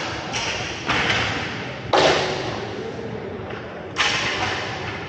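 Sharp knocks of roller hockey play, puck and sticks striking the boards, echoing around a large arena: four hits, the loudest about two seconds in, each dying away over about a second.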